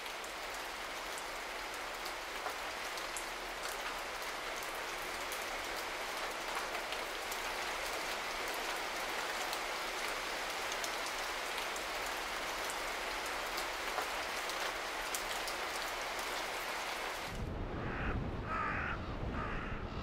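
Steady rain falling, with many small drops pattering. About 17 seconds in it cuts off to a low wind rumble, over which ravens give three short calls.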